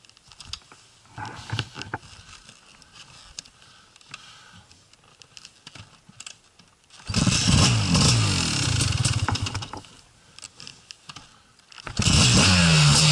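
Light clicks and rustling, then about seven seconds in a Gas Gas 250 EC two-stroke enduro engine fires and revs for about three seconds before cutting out. Near the end it starts again and keeps running loudly.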